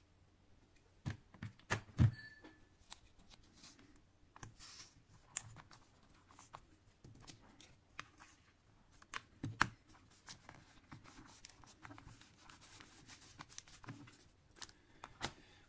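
A roll of black adhesive tape being pulled out and pressed down by hand onto a tablet's back: scattered light taps, rustles and tape noises, with a few sharper knocks, loudest about two seconds in and again a little past the middle.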